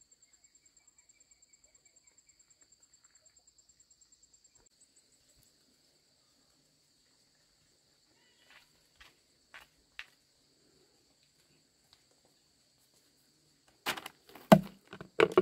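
Insects calling steadily in two high tones, with a few light taps partway through. Near the end come several loud knocks and thuds: a plastic bucket, a woven basket and bundles being set down on a concrete slab.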